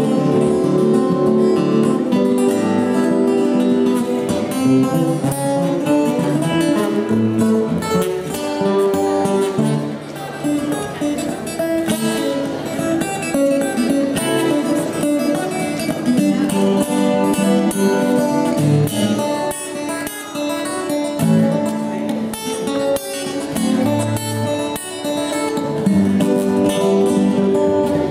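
Three acoustic guitars playing an instrumental guitar piece together, plucked notes over a continuous bass line.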